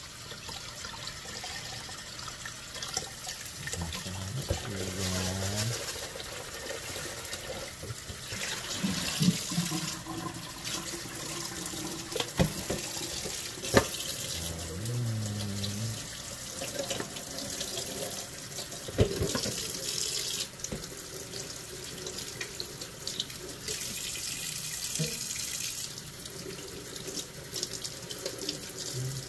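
Kitchen tap running into a stainless steel sink while a gutted round scad (galunggong) is rinsed under the stream, with a few sharp knocks.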